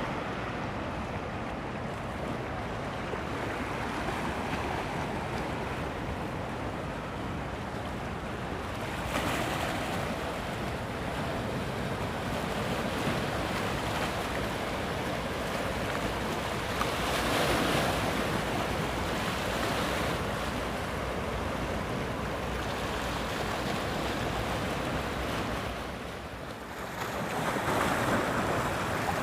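Rough sea surf rushing against the shore, with wind buffeting the microphone. The surge swells louder about nine seconds in, again around seventeen to twenty seconds, and near the end.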